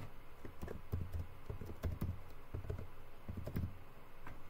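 Computer keyboard being typed on: a quick run of short key taps, as a word is typed into a name field.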